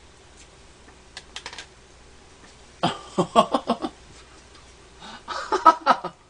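A few light clicks of a spoon against a plastic bowl of shaved ice, then two bursts of a man's laughter in short pulses, about three seconds in and again near the end.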